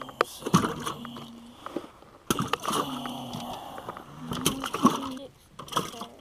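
Crappie being dropped one by one from a landing net into a boat's aluminium livewell: a series of wet slaps, splashes and knocks as each fish lands and flops in the water.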